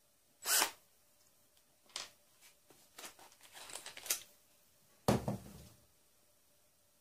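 Handling clicks and knocks of a cordless drill and its screwdriver bits on a workbench: a sharp click about half a second in, a run of small clicks, and a heavier thump about five seconds in. The drill's motor is not running.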